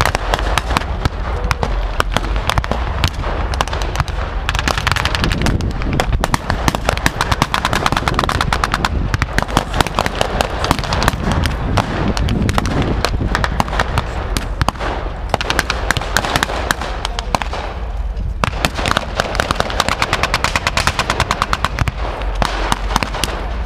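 Sustained battle gunfire from WW2 reenactors' rifles and machine guns firing blanks: rapid, overlapping shots, with a brief lull about eighteen seconds in.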